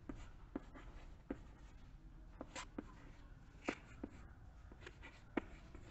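Chalk writing on a chalkboard: a string of faint, irregular taps and short scratches as the letters are formed, the sharpest taps a little after three and a half and five seconds in.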